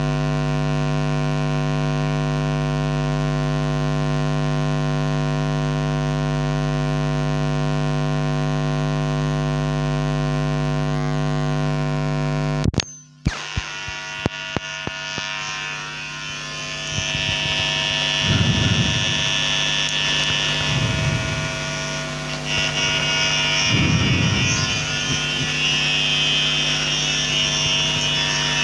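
Loud, steady electrical mains buzz on the microphone's audio line. About thirteen seconds in it drops out suddenly with a few clicks, giving way to hissing, crackling line noise with a few low thumps.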